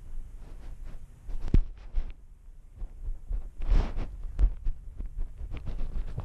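Grass and leaves brushing and scraping against a GoPro worn by a cat as it pushes through the grass, with irregular dull thumps as the cat's movements jolt the camera. There is a louder knock about one and a half seconds in and a burst of rustling around four seconds.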